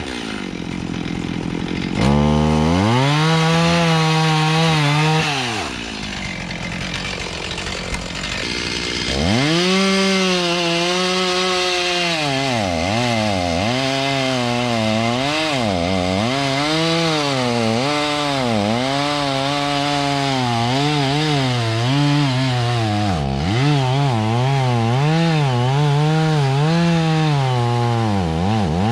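Two-stroke chainsaw cutting wood, its engine pitch rising and falling over and over as it revs up and bogs down in the cut. Twice near the start it drops back to a lower, quieter running speed before revving up again.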